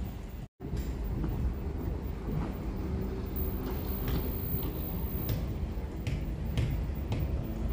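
Wind buffeting the microphone outdoors, a steady low rumble with a few faint clicks in the second half.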